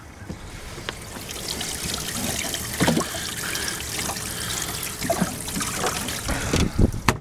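Water trickling and splashing in a boat's livewell as a smallmouth bass is pulled out of it, with a few handling knocks and a sharp knock near the end.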